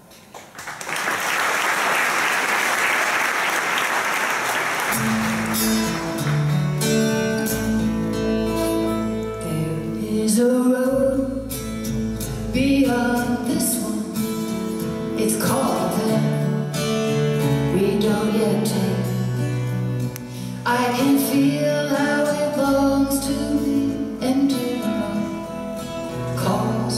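Audience applause for about five seconds. It gives way to the instrumental intro of a song: acoustic guitar with an orchestra's strings playing underneath.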